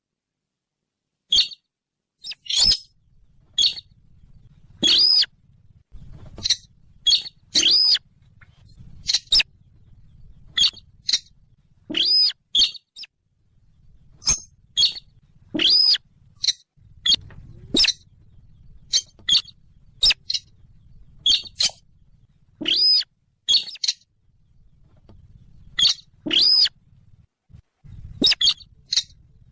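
Recorded call of the sintar bird, played as a hunting lure: short, sharp, high call notes repeated at irregular intervals, often in quick pairs, about one to two a second.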